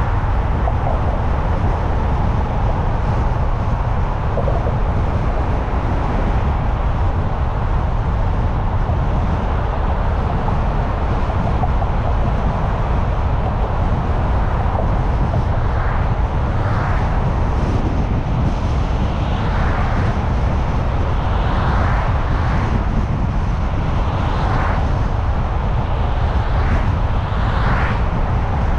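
Steady low rumble of road and wind noise from a car driving at speed. About halfway through, short higher sounds start to recur every second or two.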